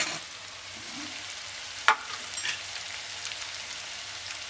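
Chopped vegetables and paneer sautéing in oil in a pan, with a steady sizzle while a utensil stirs them. There is one sharp clack of the utensil against the pan about two seconds in.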